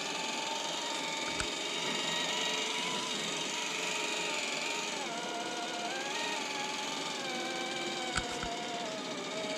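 Electric motor and geared drivetrain of an Axial SCX10 III Jeep Wrangler RC crawler whining as its tyres churn up loose sand, the pitch dipping and rising with the throttle. A short knock comes about a second and a half in, and two more come near the end.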